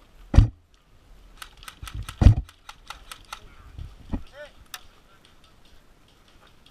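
A run of sharp clicks with a few louder short thumps among them.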